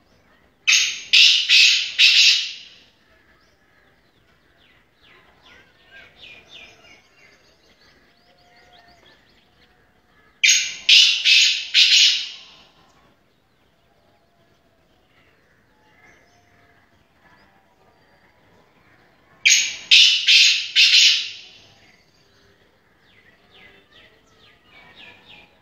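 Caged francolin (teetar) calling: three loud bouts of about four harsh, ringing notes each, roughly nine seconds apart, with faint chirps between them.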